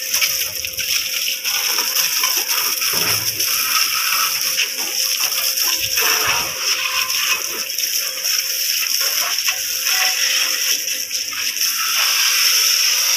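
Water from a garden hose spraying onto a motorcycle and splashing on the concrete floor: a steady rushing spray under strong pressure, the hose fed straight from an electric water pump.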